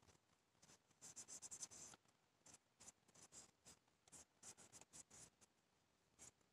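Faint, quick scratching strokes of a cotton swab scrubbing out the inside of a nitro engine's crankshaft, busiest about a second in.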